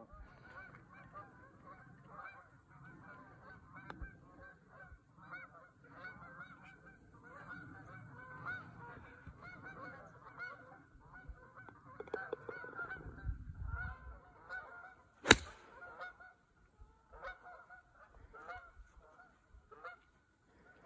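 A flock of geese honking and calling over and over. A single sharp crack, the loudest sound, cuts in about fifteen seconds in.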